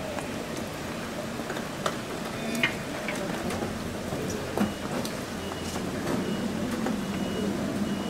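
Baseball bullpen ambience: a steady background hum with a low murmur, broken by a few short sharp pops about two, two and a half and four and a half seconds in.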